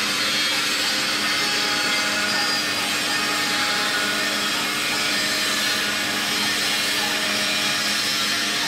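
Mini 5-axis CNC milling machine running, its spindle cutting steadily: an even hiss over a constant low hum.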